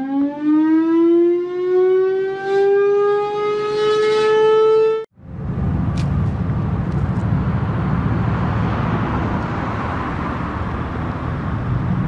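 Federal Thunderbolt mechanical siren winding up, its pitch rising steadily, then cut off abruptly about five seconds in. After that there is a steady rushing noise with a low hum.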